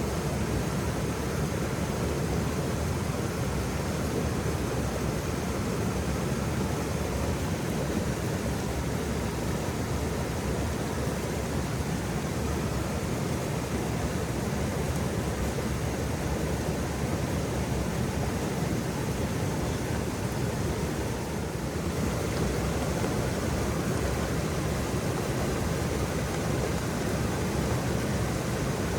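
Waterfall: water falling and rushing in a steady, unbroken roar of noise, weighted toward the low end, briefly softening slightly about three quarters of the way through.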